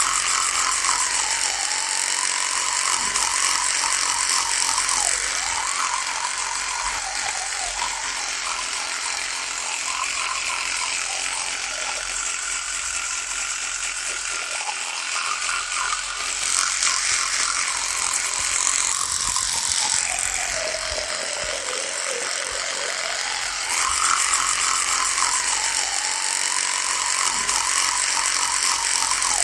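Electric toothbrush running continuously with a steady buzz. Its pitch dips and recovers every few seconds, with a longer, deeper dip about two-thirds of the way through.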